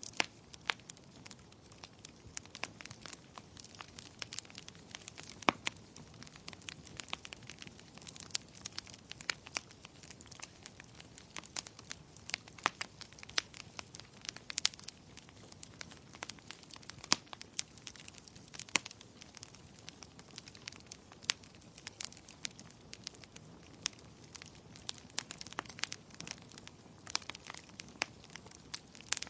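Wood fire crackling in a fireplace: a steady stream of irregular sharp pops and snaps over a low hiss of burning.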